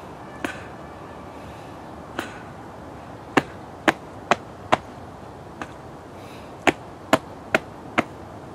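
About ten sharp slaps of a man's hands and fists striking his own chest and belly in a martial-arts body-conditioning (hardening) drill. Two lone strikes are followed by two quick runs of four, about half a second apart.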